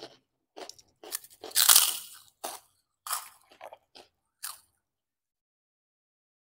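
Close-miked crisp crunching of a bitten and chewed large fried cracker, loudest about one and a half to two seconds in, then smaller crunches that stop about five seconds in.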